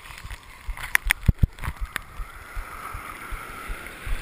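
Breaking whitewater rushing around a camera held at the water's surface. A cluster of sharp knocks and splashes of water against the camera comes between one and two seconds in, then a steady rush of foam.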